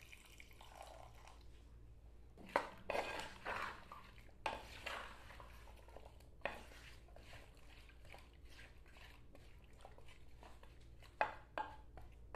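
Wooden spoon stirring wet chunks of beef liver and onions in an earthenware pot: soft, irregular scrapes and knocks against the clay, in a few short bursts.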